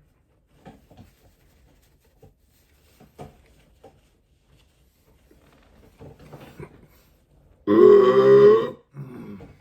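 A person lets out one loud, long belch of about a second, starting near the end, with a fainter, shorter sound right after it. Before it come only faint, scattered mouth clicks.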